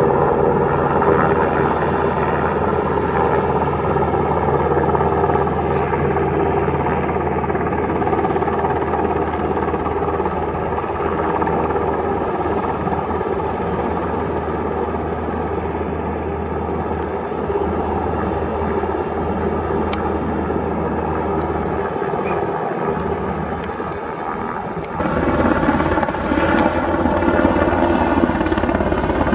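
Black Hawk helicopter hovering with a sling load on a long line, a steady drone of many tones. Near the end the sound steps up suddenly to louder and clearer.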